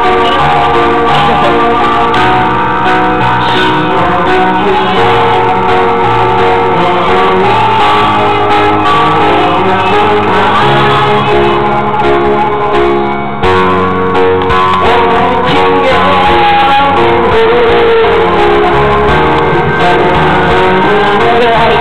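Background music: a song with guitar and singing, loud and steady, with a short break about thirteen seconds in.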